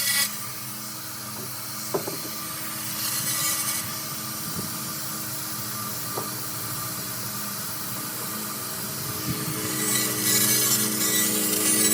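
300W fiber laser cleaner ablating baked-on grease and carbon from a metal grill grate: a steady rasping hiss with a machine hum under it, and a couple of sharp clicks.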